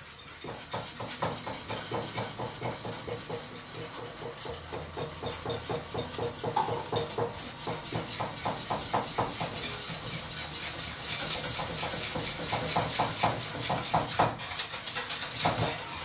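Custard being stirred in a pot on the stove as it thickens: a utensil scrapes against the pot in quick, even strokes, about five a second, over a steady hiss.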